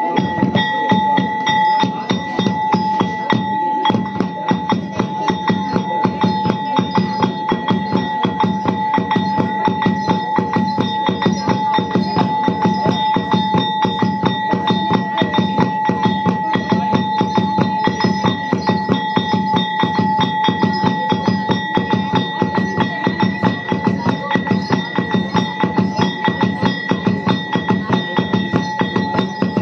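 Music with fast, even drum beats, about three to four a second, over a steady high tone.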